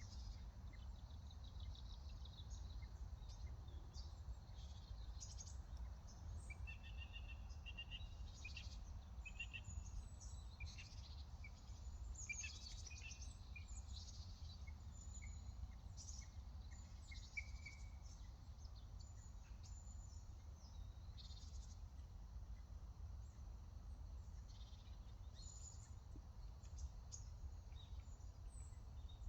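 Small birds chirping and calling: many short, high chirps overlapping, busiest in the first half and sparser later, over a steady low rumble of background noise.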